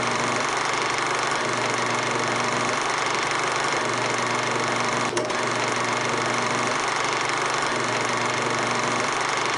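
A steady mechanical whirring and rattle, like a small motor running, with a low hum that pulses on and off and a single brief click about five seconds in.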